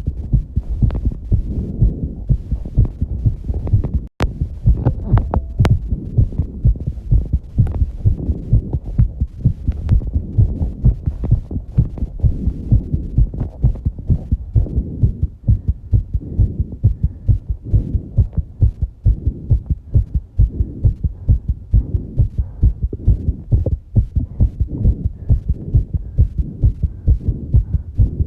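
A person's fast heartbeat picked up close to the chest after exercise: a quick, even run of low beats, with a click and a momentary dropout about four seconds in.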